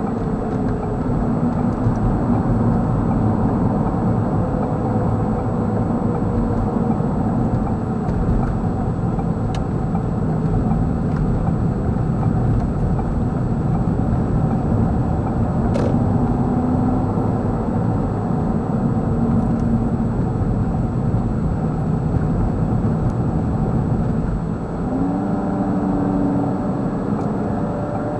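Steady road noise inside a moving car's cabin: a low rumble of tyres and engine on the highway, with faint humming tones that drift slowly in pitch as speed changes. There is a faint click about halfway through.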